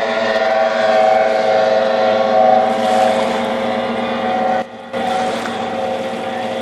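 Ski racing boat engine running at speed, a steady droning note, with a brief dropout about two-thirds of the way through.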